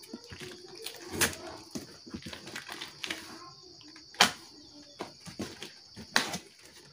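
Packing tape being ripped off a cardboard box and its flaps pulled open: three sharp tearing rips with cardboard rustling and crinkling between them.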